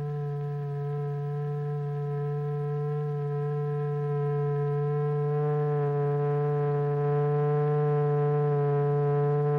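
Steady electronic tone: a strong low hum with a ladder of higher overtones, held without a break. It grows a little louder and fuller about five seconds in. It is the exciting note that sets the material on the membrane vibrating.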